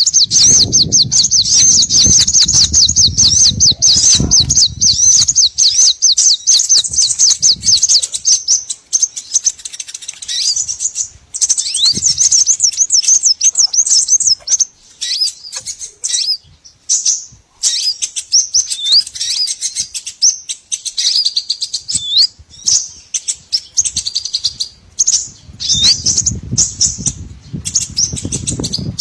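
Small songbirds chirping and trilling fast and high-pitched in quick repeated phrases, a bird-lure recording. A low rumble runs under the first few seconds and comes back near the end.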